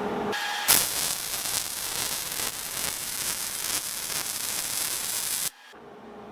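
Wire-feed welder arc crackling and hissing steadily for about five seconds as a weld bead is laid. It starts just under a second in and cuts off suddenly near the end when the trigger is released.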